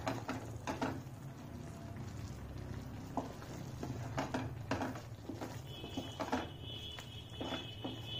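Thick paneer butter masala gravy simmering in a pan on a low gas flame, with scattered soft pops and plops of bursting bubbles over a steady low hum.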